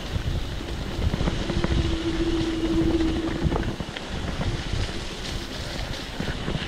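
Mountain bike rolling fast over a rough, rocky trail: a jolting rumble with many small knocks and rattles, and wind buffeting the microphone. A steady whine sounds for about two seconds early in the run.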